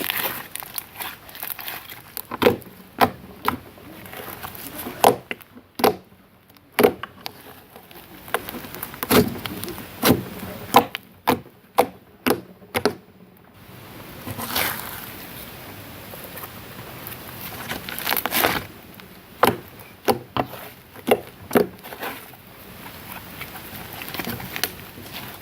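Cloud slime being squeezed, stretched and poked by hand, giving a string of sharp irregular pops and clicks with quieter stretches in between.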